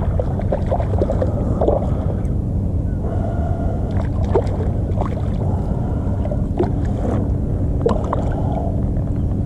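A small hooked fish splashing at the surface as it is reeled in alongside a kayak: several short, sharp splashes over a steady low rumble.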